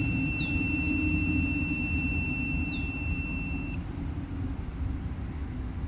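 Multimeter continuity beep, a steady high tone that cuts off suddenly about four seconds in, signalling a closed circuit through the glow plug under test. A steady low rumble runs underneath.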